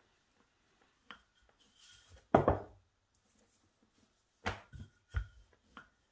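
Wooden rolling pin knocking and rolling on a wooden worktop as hands press and roll out puff pastry scraps: a handful of separate thuds, the loudest about two seconds in.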